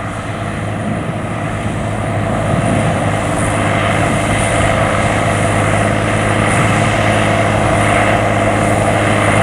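JCB Fastrac 7270 tractor's Cummins diesel engine working hard as it pulls a six-furrow plough through the soil, a steady roar that grows louder as the tractor comes closer.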